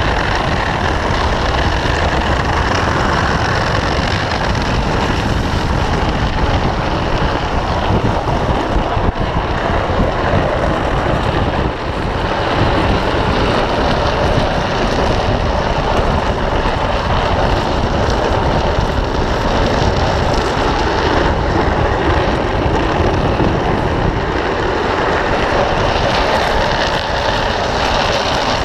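Drift trike rolling and sliding on its PVC-sleeved rear wheels over asphalt: a continuous rushing scrape with a brief dip about twelve seconds in.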